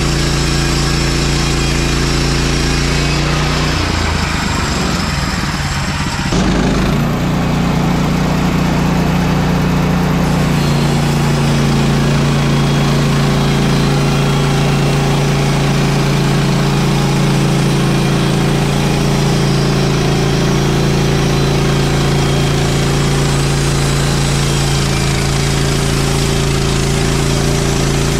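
Woodland Mills HM130 MAX portable bandsaw mill's gasoline engine running steadily, its note shifting and breaking up briefly about four to six seconds in before settling again.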